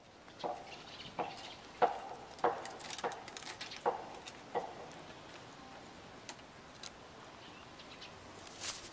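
Kaka parrots on a wooden balcony rail making a series of sharp knocks on the wood, about seven in the first five seconds, then going quieter.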